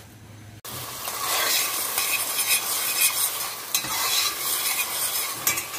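Chopped onions sizzling in hot oil in a stainless steel pot while a metal spoon stirs and scrapes them around. It begins suddenly about half a second in.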